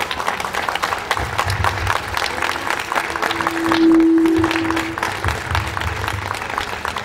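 Audience applauding steadily, a dense patter of hand claps, with a single held tone standing out for a moment around the middle.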